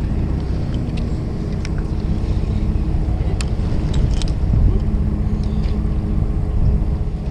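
Fishing boat's engine running steadily, a low rumble with a constant hum, with a few light clicks over it.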